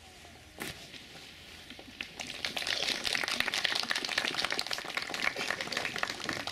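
Crowd applauding, a dense patter of many hands clapping that swells about two seconds in.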